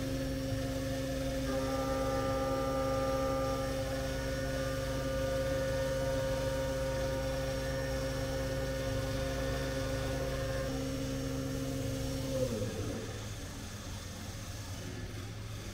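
CNC vertical mill spindle running at a steady high pitch while the cutter mills a metal part under flood coolant, over a steady low machine hum. Near the end the spindle's pitch falls away as it slows.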